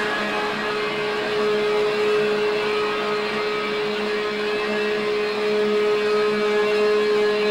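Loud live rock band: a guitar drone holding one note over a pulsing lower note, inside a dense wash of distorted guitar noise.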